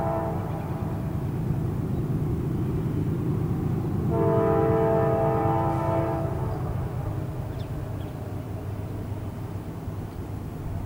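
Locomotive air horn of an approaching train sounding a chord for the grade crossing: one blast fading just after the start, a two-second blast about four seconds in, and another starting at the very end, over a steady low rumble.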